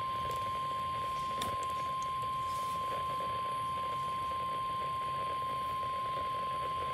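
NOAA Weather Radio warning alarm tone: a single steady tone of about 1050 Hz held without a break, the signal that a warning message is about to be read out, here a severe thunderstorm warning.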